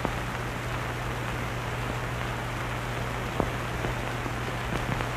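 Steady hiss with a low hum and a few faint crackles and clicks, the clearest about three and a half seconds in: the surface noise of an old film soundtrack.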